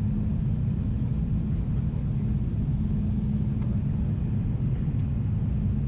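Steady cabin rumble of a Boeing 777-300ER with its GE90 engines running, a low steady hum under the noise.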